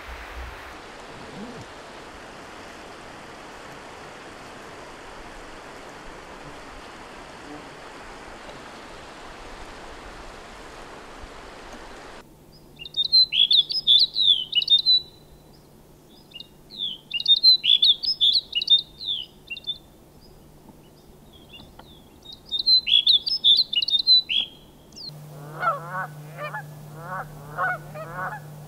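A steady rushing noise cuts off about twelve seconds in. After it a small bird gives three bouts of high chirping calls, and near the end geese honk repeatedly over a low steady hum.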